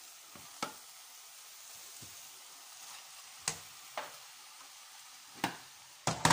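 Cooked cabbage sizzling faintly in a steel pot while a serving spoon knocks sharply against the pot and plate four times, spaced out over a few seconds. Near the end the pot lid clatters on, the loudest sound.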